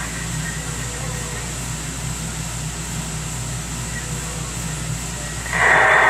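CB radio receiver hissing with its squelch open between transmissions: steady static over a low hum. About five and a half seconds in, a voice comes in over the radio.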